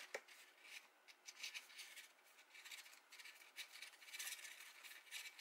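Faint, irregular rustling and rubbing of cardstock as it is folded over and creased down by hand.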